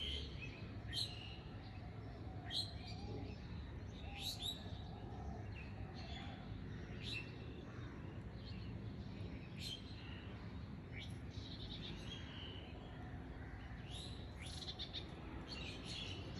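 Small birds chirping: short high calls, one every second or two, over a faint steady low hum.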